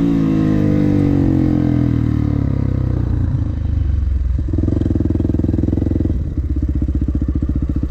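Dirt bike engine winding down, its pitch falling as the bike coasts and slows, then settling into a steady idle about four and a half seconds in.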